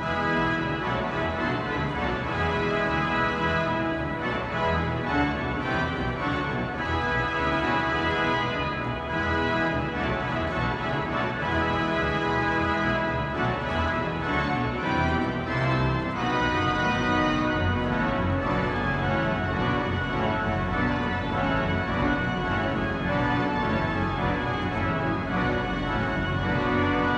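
The Wanamaker Organ, a huge pipe organ, playing a loud fanfare of full sustained chords with moving lines. It swells louder right at the start and stays full throughout.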